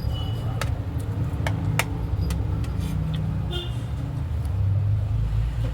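A steady low rumble with scattered sharp clicks and two brief high ringing tones, one near the start and one past the middle.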